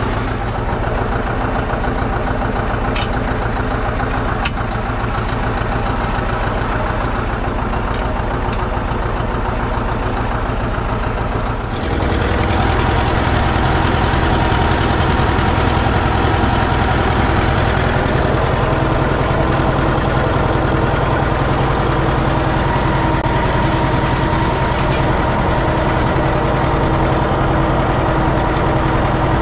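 Farm tractor engine running steadily; about twelve seconds in it dips briefly, then carries on louder.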